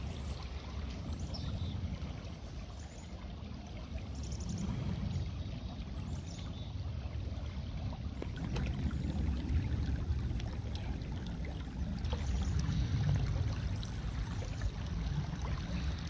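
Shallow creek rippling over a stony bed: a steady rush of running water, under a low rumble that swells and fades every few seconds.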